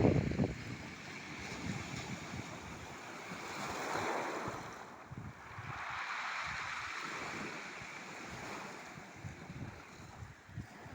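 Sea waves washing in, the surf swelling about four seconds in and again a little later, with wind gusting over the microphone in low rumbles.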